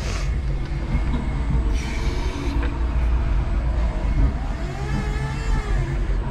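Electric forklift truck driving with a load: a steady low rumble from the cab and running gear, a short hiss about two seconds in, and the electric drive motor's whine rising and then falling again near the end.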